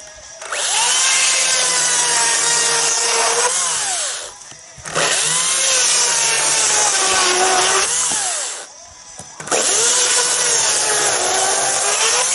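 Makita 36-volt battery chainsaw cutting pine firewood in three cuts of about four seconds each, with short pauses between them. Its electric motor whine dips in pitch as the chain loads into the wood, then rises again as the cut finishes.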